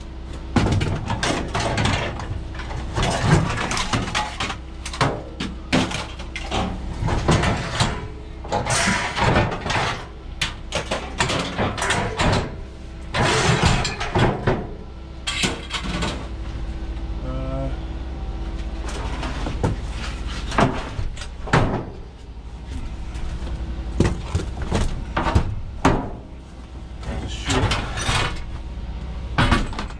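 Irregular knocks and clatter, some in quick runs, over a steady low hum.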